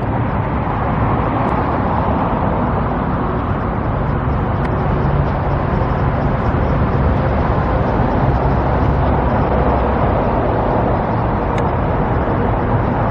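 Steady road traffic noise: a continuous, even wash of passing vehicles with no distinct single event.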